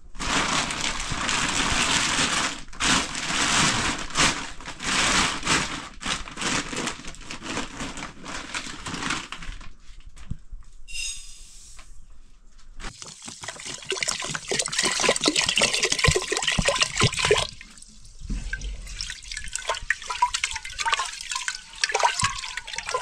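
Water splashing and pouring in long rushing stretches with pauses between them. Short wavering pitched calls sound over it near the end.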